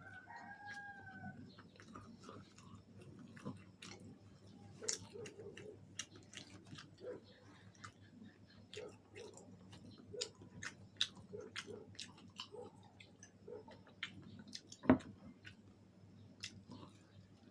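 A person chewing fried chicken wings close to the microphone: irregular wet mouth clicks and small crunches, with one sharper knock about 15 seconds in.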